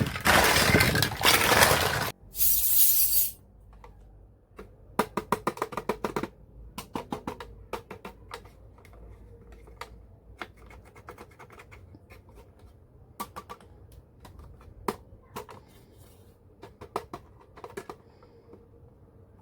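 Loud rustling for about two seconds and a short hiss, then irregular clusters of light clicks and taps as small toy kitchen pieces are handled.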